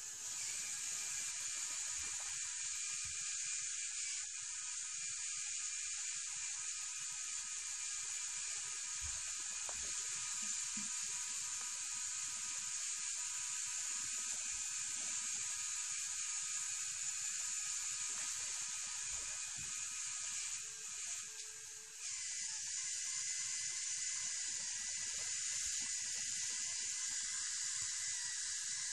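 Electric motors and plastic gearing of a Lego Technic RC crane running steadily, a thin whine over a hiss, as the boom telescopes out. About three quarters of the way through the sound dips briefly and the whine changes pitch.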